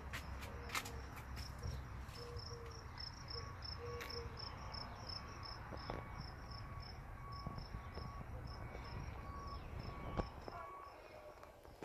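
Insects chirping outdoors in a steady rhythm of short, high chirps, about four a second, with a fainter repeating lower chirp behind them. A few faint clicks come over a low rumble, one sharper click about ten seconds in.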